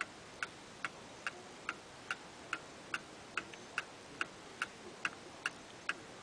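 Antique mechanical clock movement ticking steadily, about two and a half even ticks a second: the clock is running in beat.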